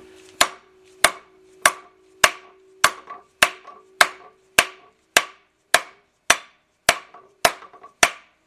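Hammer blows on a homemade steel-pipe driver, about fifteen in a steady rhythm of under two a second, pressing the oil pickup screen into a GM 4.3 V6 oil pump as a press fit. The metal rings with a steady tone between blows.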